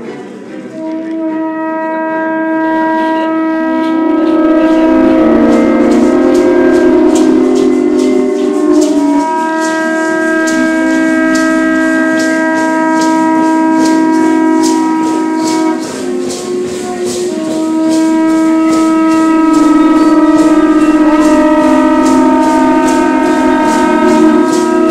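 Conch shell trumpets blown in three long, held blasts, with a short break between each. Rattles are shaken in a steady beat underneath, about two strokes a second.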